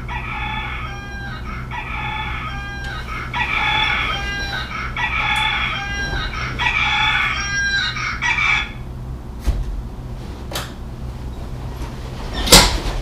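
Wake-up alarm sounding a repeating tone pattern about once a second, stopping about eight and a half seconds in. After it a few light clicks and one sharp knock near the end, over a steady low hum.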